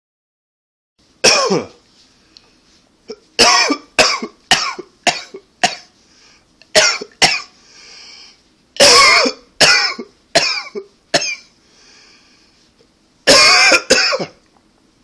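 A man coughing hard in repeated fits of one to several harsh, loud coughs, with breaths drawn in between the fits.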